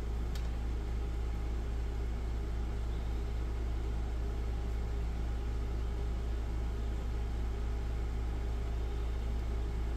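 Steady low hum with a faint hiss underneath: background room noise with no distinct events.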